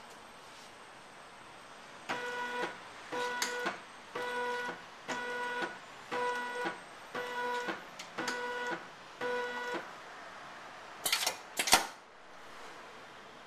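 Motor of a homemade assembly machine moving its carriage in about eight short steps, roughly one a second, each a brief even whine. Two sharp mechanical clicks follow near the end.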